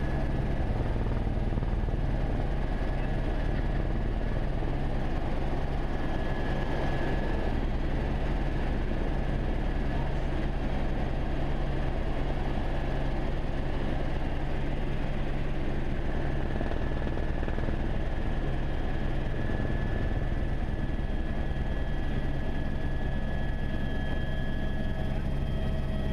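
Écureuil helicopter in flight, heard from inside the cockpit: steady rotor and turbine noise, a deep hum with a thin high whine that comes and goes.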